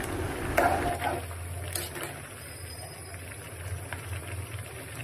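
Gas stove burner running under a pot of curry simmering near done, a low steady rumble with faint hiss.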